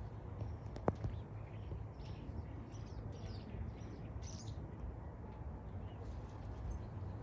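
Small birds chirping and twittering in short, high calls, clustered in the first half, over a steady low rumble, with one sharp click about a second in.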